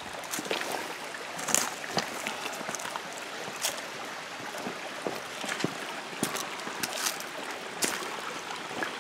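A small spring-fed creek running over stones, a steady rush of water. Irregular footsteps click and crunch on loose rocks and dry leaves over it.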